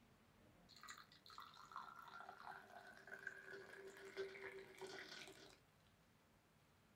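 Milk tea poured in a stream from a height into a stainless steel tumbler, splashing and frothing, with a faint ringing from the steel. It starts about a second in and stops suddenly about five seconds in.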